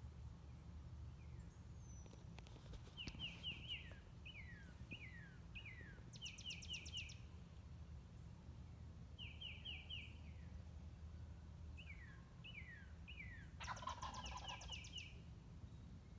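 Faint outdoor birdsong: repeated short falling high notes, some in quick runs of four or five and some single, with a wild turkey gobbler gobbling once near the end.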